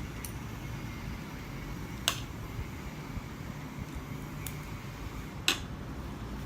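Two sharp clicks about three and a half seconds apart, from cutlery striking a plate while eating, over a steady low background hum.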